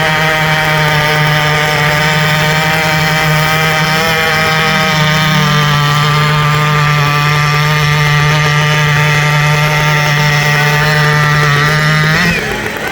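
Two-stroke chainsaw engine held wide open at high revs, its pitch steady, then dropping off sharply about twelve seconds in as the throttle is let go.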